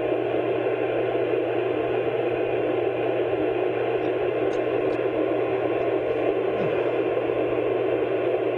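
Steady even hiss of an old recording's noise floor, narrow in range like a radio or telephone line, with a faint low hum under it.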